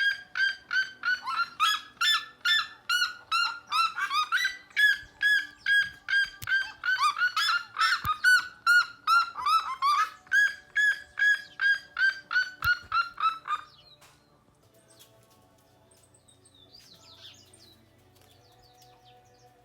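A bird calling over and over in a long series of short pitched notes, about three or four a second, that stops about fourteen seconds in. Faint chirps follow.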